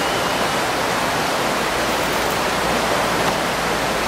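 Steady rush of whitewater from the river rapids of the slalom course, an even roar of water over rocks.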